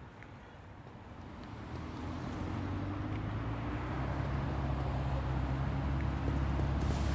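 A low engine rumble with a steady hum, growing louder from about a second and a half in and then holding.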